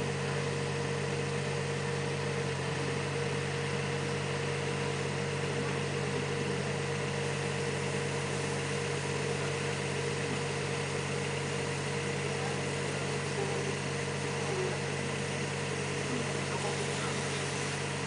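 Steady drone of site machinery running continuously, with several unchanging low tones and no change in speed.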